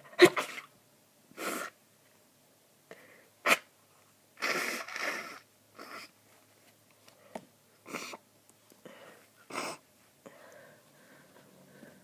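A person sneezing repeatedly with a congested nose, an allergic reaction to cat hair. Sharp sneezes come just after the start and about three and a half seconds in, with several softer noisy breaths and bursts between them.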